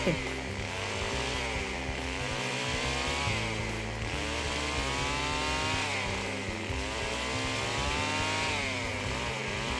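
Stihl chainsaw engine revving up and dropping back several times as its chain cuts through a thin, bent sapling.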